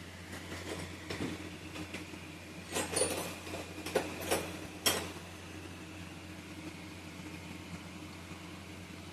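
Steady low mechanical hum with a few sharp metallic knocks and clinks between about three and five seconds in, typical of metal parts and tools being handled while working on an incense-stick making machine.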